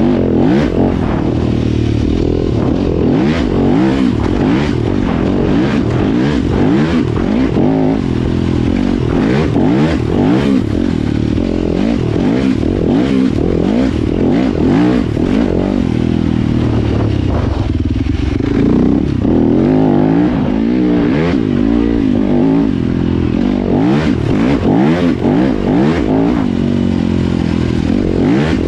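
Dirt bike engine revving up and down continually as the bike is ridden along a dirt trail, with rattles and knocks from the bike over rough ground. The engine eases briefly about two-thirds of the way through.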